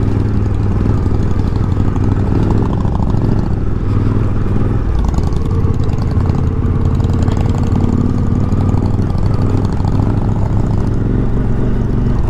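Suzuki V-Strom motorcycle engine running steadily under load as the bike climbs a rocky dirt road, heard from the bike itself.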